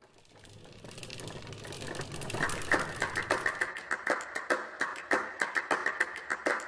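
Rapid, irregular clicking or tapping that fades in from near silence and grows louder, roughly three to four clicks a second.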